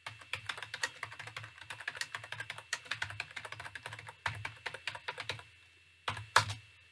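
Typing on a computer keyboard: a quick run of key clicks, a brief pause, another short run, then two louder key strikes near the end.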